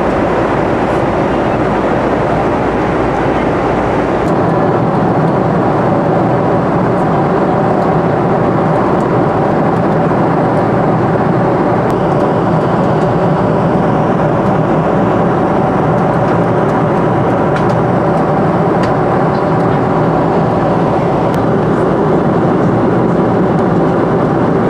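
Steady engine and airflow noise inside the passenger cabin of a Boeing 747 during its climb. The deepest rumble drops off about four seconds in.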